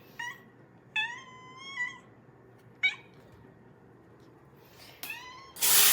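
A domestic cat meowing four times: short calls at the start, about three seconds in and near the end, with one long drawn-out meow about a second in. Just before the end a loud, steady hiss cuts in and becomes the loudest sound.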